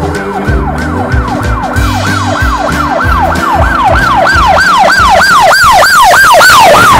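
Toy police car's electronic siren yelping in fast repeated sweeps, about three a second, growing louder and cutting off suddenly near the end, over background music.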